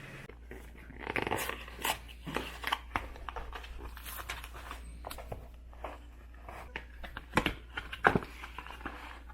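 Close-up eating sounds: irregular biting, crunching and chewing clicks as someone tastes pastries, over a faint steady low hum.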